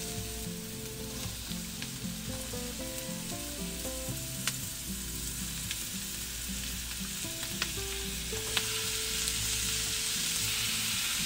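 Chopped red onion and garlic frying in oil in a nonstick pan: a steady sizzle, as raw chicken drumsticks and wings are laid in. A few sharp clicks sound in the pan, and the sizzle grows louder over the last few seconds.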